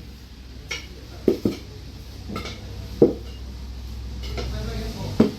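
Metal tools knocking and clanking against a scooter wheel rim during a manual tyre change: several sharp metallic knocks, the loudest about three seconds in and another just before the end, over a low steady hum that stops near the end.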